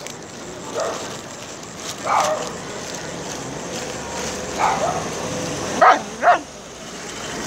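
A stray dog giving short barks and yips, five in all, spaced a second or two apart. The last two come close together about six seconds in and are the loudest.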